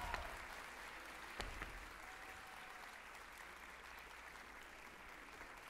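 Audience applauding, steady and fairly faint, as the music's last note cuts off at the start. A single thump sounds about a second and a half in.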